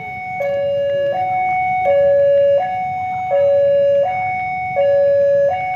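Railway level-crossing warning alarm sounding as a train approaches: an electronic two-tone signal alternating evenly between a lower and a higher note, about every three-quarters of a second.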